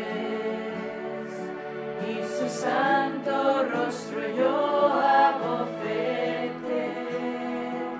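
A communion hymn sung slowly by a choir, over a steady held accompaniment.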